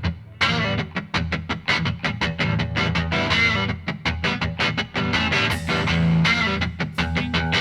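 Background music led by guitar, with plucked notes in a quick, steady run.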